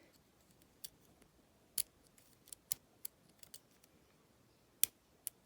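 Scattered sharp metallic clicks, about a dozen at uneven intervals, from a lock pick and tension wrench working the spring-loaded pins of a challenge padlock, as the core is eased in counter-rotation out of a deep false set.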